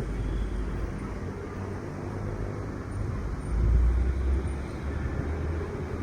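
Heavy vehicle engine, most likely a bus, rumbling low as it passes on the road, swelling to its loudest a little past halfway.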